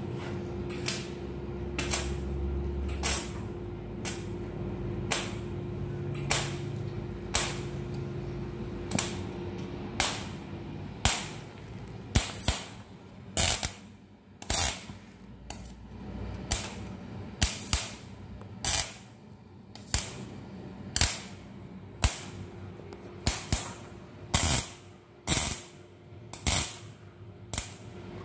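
Electric arc welding on a cracked steel motorcycle frame, laid as short tack or stitch welds: a brief crackling burst about once a second at uneven intervals. A faint steady machine hum runs under the first part and comes back near the end.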